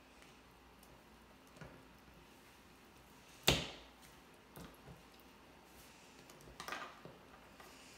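Soft sticky handling of toy slime and gel crystals being picked apart by hand, with one sharp knock about three and a half seconds in and a few quieter clicks later.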